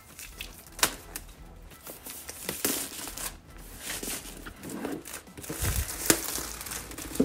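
Clear plastic shrink wrap being peeled off a laptop box, crackling irregularly with a few sharp snaps.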